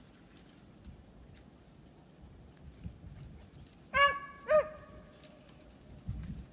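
Hunting beagle giving tongue on a rabbit's trail: two loud barks about half a second apart, about four seconds in, the second drawn out into a short bay.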